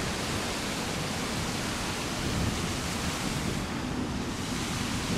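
Wind buffeting the microphone, uneven low rumbling over a steady rushing hiss.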